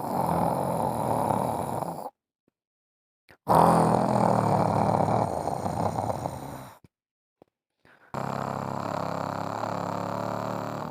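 A person snoring: three long, rough snores, each lasting two to three seconds, with short silences between them.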